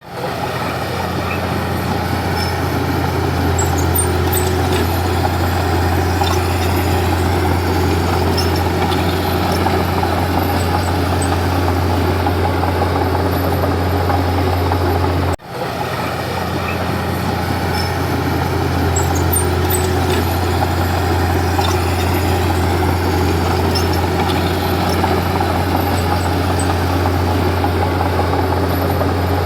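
Komatsu D31P bulldozer's diesel engine running steadily with a deep drone. It cuts out briefly about halfway through and fades back in.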